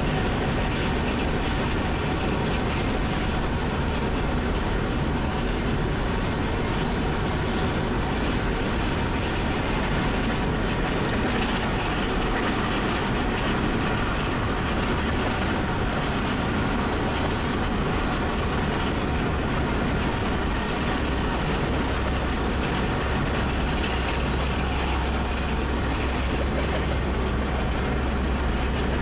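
Steady rumble of a Norfolk Southern freight train's diesel locomotives, led by an EMD SD70ACe, heard from a car driving alongside, with the car's road noise mixed in. The deep low rumble grows stronger about two-thirds of the way through.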